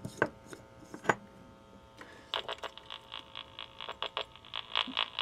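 Two clicks within the first second as the bulb is handled in its socket. From about two seconds in, an LED bulb driver's switching can be heard through a pickup coil and a small speaker amplifier as a fast, even train of buzzing pulses. The driver keeps restarting and shutting down, which is how it responds to being overloaded by a 60-watt incandescent bulb.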